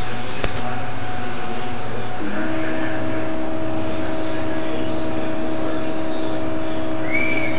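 Stepper motors of a hot-wire CNC foam cutter whining steadily as they drive the axes. The pitch steps to a new, stronger tone about two seconds in as the motor speed changes, over a constant mechanical hum.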